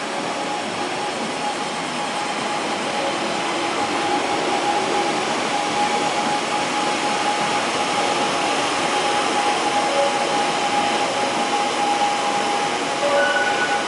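Train running at speed: a steady rushing rumble with a steady whine.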